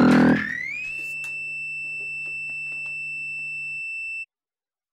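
The band's music stops shortly after the start, leaving a single high tone that glides up in pitch, then holds steady for about three seconds and cuts off suddenly.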